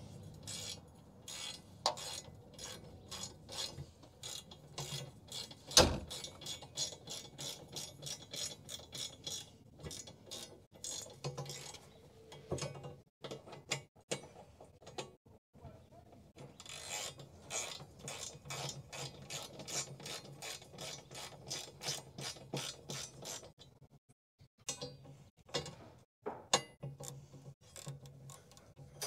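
Hand ratchet wrench clicking in quick runs as its pawl ratchets back and forth while turning the bolts of a skid steer's side access panel, with short pauses between runs. One louder knock about six seconds in.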